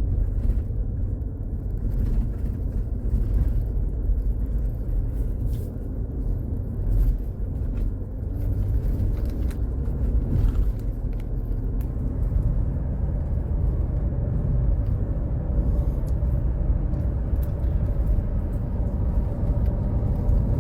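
Steady low rumble of a 2015 Chevrolet Tahoe's V8 engine and road noise heard from inside the cabin while driving, on a road test for an intermittent misfire.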